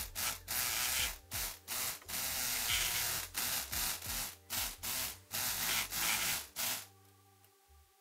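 Multipick Kronos electric lock pick gun buzzing in a rapid series of short on-off bursts and a few longer runs, its vibrating needle rattling against the pins of a Yale 6-pin padlock while it is held under tension. The buzzing stops a little before the end.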